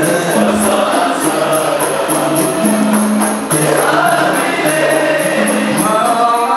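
Qasidah music: boys singing a melody over rebana frame drums and tambourine jingles keeping a steady beat of about three to four strokes a second, with low held tones underneath.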